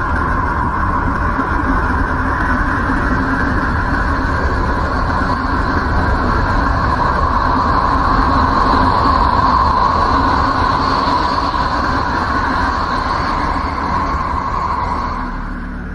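Sonified spacecraft recording of a planet's radio or plasma emissions: a steady rumbling noise drone with a hissing upper band. It swells slightly midway and fades out near the end.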